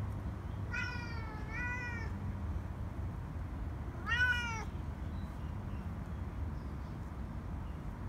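Domestic cat meowing three times: two calls close together about a second in, then a louder, shorter meow about four seconds in.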